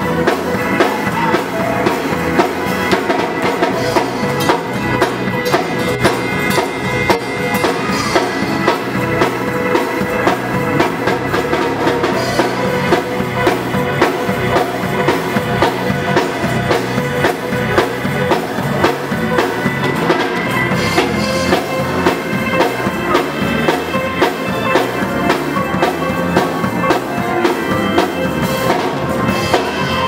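Live gospel band playing an instrumental passage: a drum kit with a steady beat of kick, snare and cymbals, and an electric bass guitar underneath.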